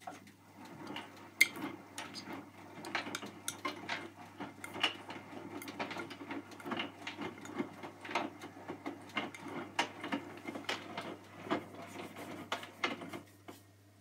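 Hotpoint front-loading washing machine drum turning during a wash: wet laundry tumbling and sloshing in soapy water, with irregular clunks and knocks. The tumbling starts suddenly and stops about thirteen seconds in as the drum pauses.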